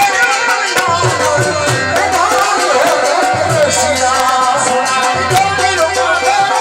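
Music with drums and percussion under a wavering melody line.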